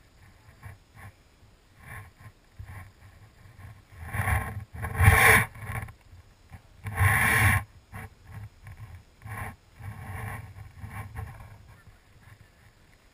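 Rubbing and knocking from a GoPro wedged in a styrofoam block as it swings under helium balloons: scattered small clicks, with two louder scraping bursts about four and seven seconds in.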